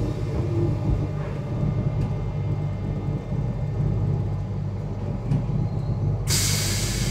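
Alstom MF77 Paris Metro train heard from inside the car while running: a steady low rumble and hum. About six seconds in, a loud hiss sets in suddenly.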